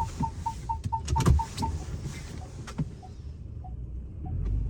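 Vehicle parking sensor beeping rapidly, then slowing to spaced-out beeps, over a running engine. A couple of sharp knocks come through partway in.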